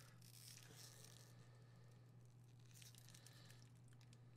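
Faint crinkling and tearing of a Lindor truffle's foil wrapper being unwrapped, pausing for a second or so in the middle, over a steady low hum.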